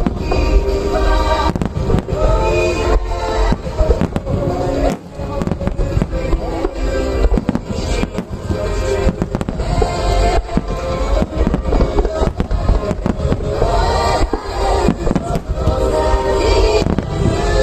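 Starmine fireworks shells bursting in rapid succession, with deep booms and sharp cracks over a bed of loud music playing throughout.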